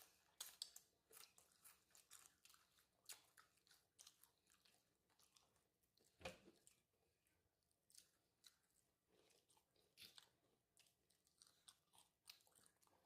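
Homemade nachos being bitten and chewed: tortilla chips crunching in quick, irregular cracks, quiet overall, with one sharper crunch about six seconds in.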